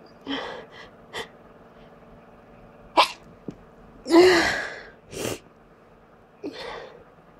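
A person sneezing several times. Short breathy catches come in the first second or so, then a sharp sneeze about three seconds in. The loudest, voiced sneeze comes just after four seconds, with a short burst after it and a weaker one near the end.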